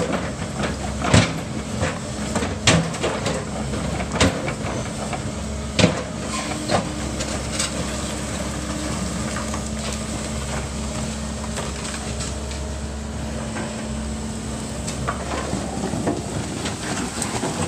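Tracked hydraulic excavator running steadily while its bucket knocks down and breaks up a concrete-block wall. Several sharp knocks and cracks of breaking blocks come in the first six seconds, and a steady hum joins the engine for several seconds in the middle.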